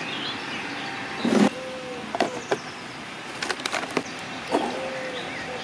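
A few knocks and clicks from bait trays and a tin of sweetcorn being handled on a plastic fishing side tray, the loudest about a second and a half in. Birds chirp near the start and the end.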